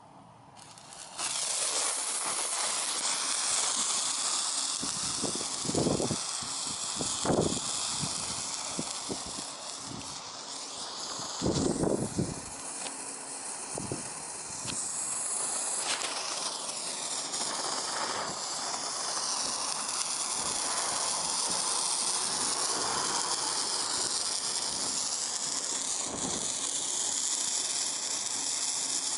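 Handheld sparkler lit and burning with a steady hiss that starts about a second in, broken by a few louder crackles.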